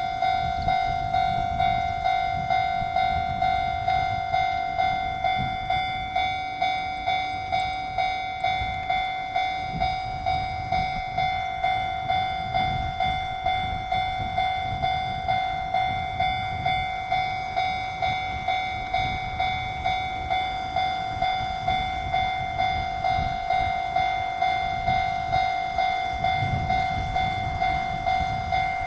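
Japanese railway level crossing warning bell ringing, an evenly repeated electronic ding about twice a second, with a low rumble underneath.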